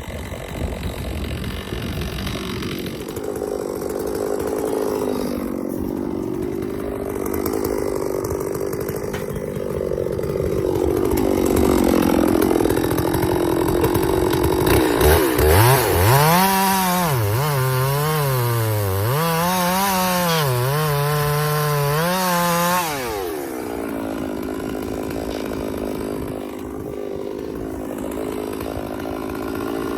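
Chainsaws running. About halfway through, a close saw runs at high revs, its pitch dipping and climbing back several times as it works through the wood. It then drops back to a lower, steadier running sound, and near the end it revs up again.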